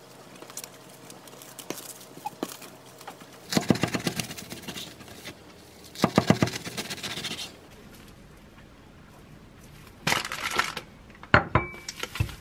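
Plastic cling wrap crinkling around a bagel sandwich, and a knife sawing through the wrapped bagel in two crackly bursts. Near the end the wrap crinkles again and there are a few sharp knocks as the cut halves are handled.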